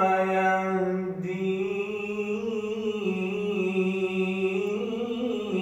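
A man's voice reciting the Quran in melodic tajweed style, holding one long, drawn-out note on the phrase 'fahuwa yahdin' and moving it through a few small steps in pitch without a break.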